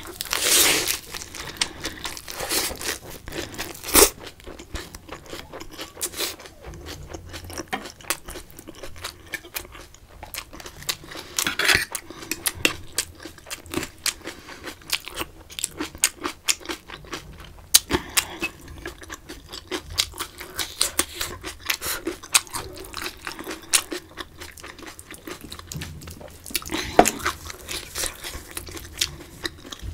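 Close-miked chewing and crunching of a crisp lettuce-leaf wrap and kimchi, with many small wet mouth clicks and smacks. Louder crunching bites come right at the start, about twelve seconds in, and near the end.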